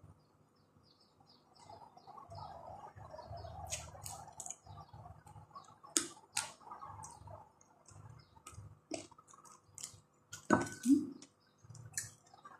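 A person eating fried chicken with her fingers: chewing with many small wet mouth clicks and lip smacks, the loudest about ten and a half seconds in.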